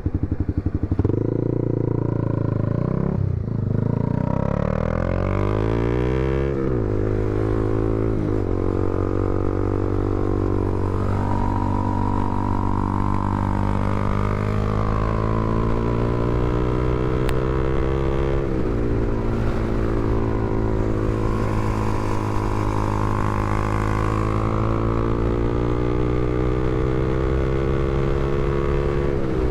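Honda CBR300R's single-cylinder engine pulling under acceleration. Its pitch climbs steadily through each gear and drops sharply at the upshifts: about a fifth of the way in, again about two-thirds through, and once more at the very end.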